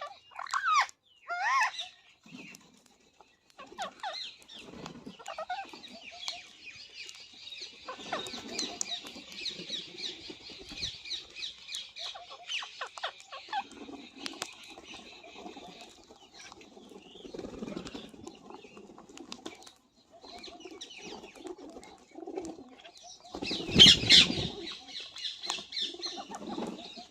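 Ringneck parakeets calling and chirping, with pigeons cooing low underneath, and a loud flurry of wing flaps near the end.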